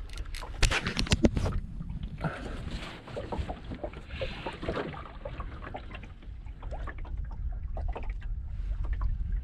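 Spinning reel being wound in against a hooked fish, with a dense run of sharp clicks and knocks in the first second or so, over a steady low rumble of wind and water against the hull.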